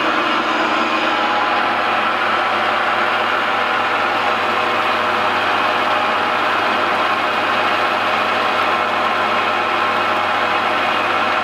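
Large three-phase metal lathe running at full speed, its cutting tool turning down a hardened steel bearing and throwing sparks. The cutting and machine noise is loud and steady.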